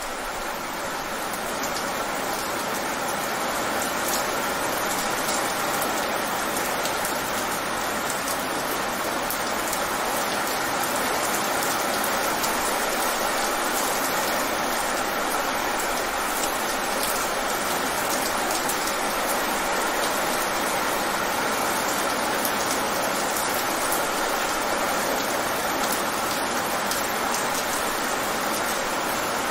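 Rain falling fast on wet pavement: a steady, dense patter of drops hitting the wet surface, growing a little louder over the first few seconds.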